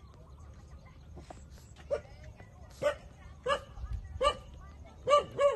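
Puppy whimpering and yipping in short pitched calls, about six, coming closer together toward the end, with the last two the loudest.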